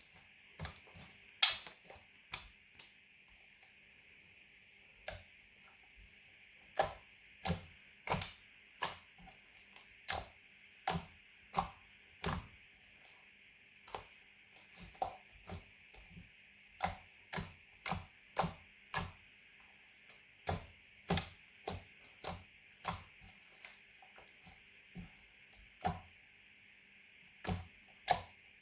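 Glitter slime being pressed and stretched by hand, with air pockets bursting in a steady, irregular run of sharp clicks and pops, about one to two a second. A faint steady hiss lies underneath.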